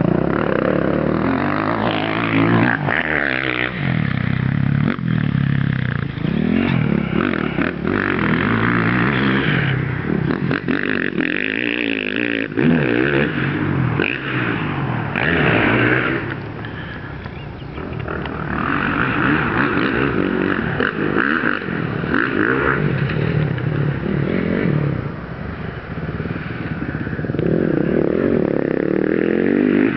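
Dirt bike engine revving up and falling off again and again under changing throttle. It fades briefly a little past the middle.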